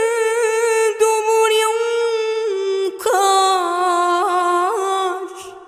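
A woman reciting the Quran in slow, melodic tajweed style, holding long notes with small ornamental turns. There is a short break about three seconds in, then a second held phrase that fades away near the end.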